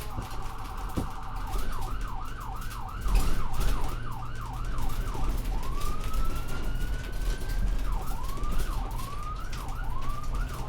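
Electronic siren cycling through its patterns: a fast warble at first, then a yelp sweeping up and down about three times a second, then a long rising wail, then shorter sweeps again. A steady low hum runs underneath.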